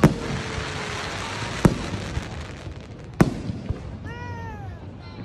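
Aerial fireworks shells bursting: three sharp bangs about a second and a half apart, the first followed by a dense crackle of sparks.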